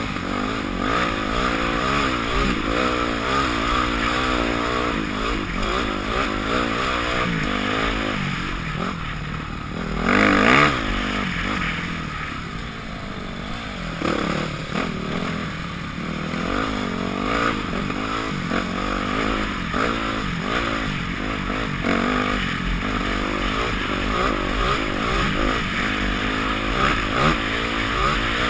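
2006 Yamaha YZ250F's single-cylinder four-stroke engine, heard from on the bike, revving up and down continually as it is ridden along a dirt trail. A brief louder rush of noise comes about ten seconds in.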